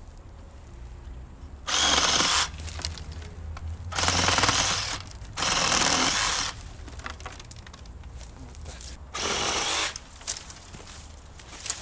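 Cordless Denzel reciprocating saw cutting into a tree branch in four short bursts: one about two seconds in, two close together in the middle, and a last, shorter one near the end.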